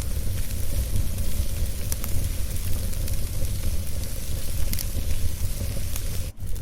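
Wood fire burning in a fireplace, crackling with scattered sharp pops over a steady low rumble of the flames. The sound briefly drops out for an instant near the end.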